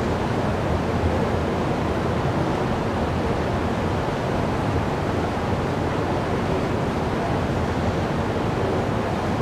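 Steady rumbling roar of an underground MRT station platform, even throughout with no distinct events.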